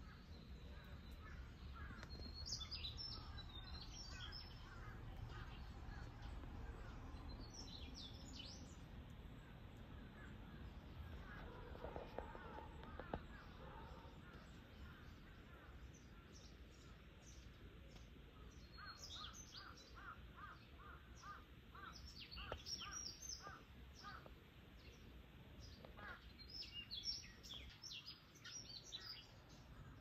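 Faint garden birdsong: small birds chirping and twittering in short high bursts, with one bird repeating a lower note about two or three times a second in runs, over a low steady background rumble.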